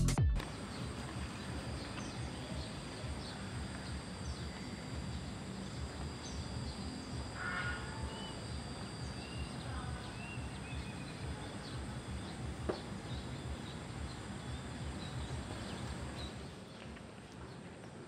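Rural outdoor ambience by rice paddies: a steady background hush with scattered short bird chirps and a faint steady high tone, and a single sharp click about thirteen seconds in.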